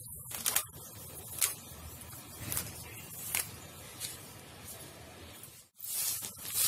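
Hand pulling grass and weeds from a crack at a railing's base: soft rustling and tearing about once a second. Near the end two louder swishes of a stiff-stick broom sweeping rough concrete.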